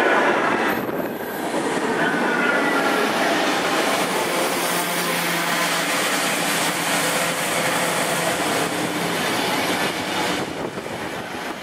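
Belgian electric multiple-unit passenger train running past close along a station platform: a steady rumble and rattle of wheels on rail, with a faint high wheel squeal about two seconds in and a low steady hum through the middle.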